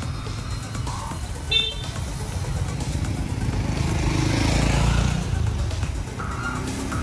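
A motor vehicle passing on the street, its engine getting louder to a peak about five seconds in and then fading, over a low traffic rumble. A short high blip sounds about a second and a half in.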